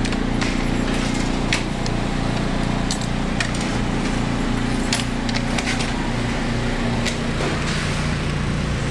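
Supermarket ambience: a steady low machinery hum with scattered light clicks and small rattles.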